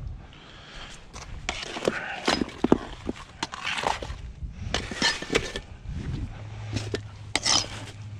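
Rocks clattering and scraping as a hammer pries and flips them, with irregular sharp knocks of stone on stone. A low steady hum comes in about six seconds in.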